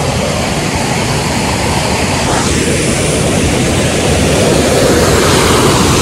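Waterfall and rapids rushing: a loud, steady water noise that grows slightly louder.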